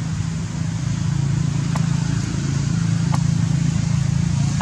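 Steady low drone of a running motor, with two faint short chirps about two and three seconds in.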